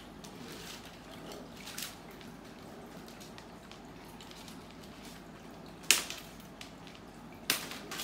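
Faint rustling as artificial plastic monstera leaves are handled and tucked into a flower arrangement, with a sharp click about six seconds in and another near the end.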